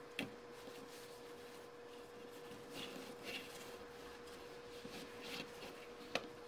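Plastic K'nex construction-toy pieces being handled: a sharp click just after the start and another near the end, with softer plastic rubbing and rattling in between, over a faint steady hum.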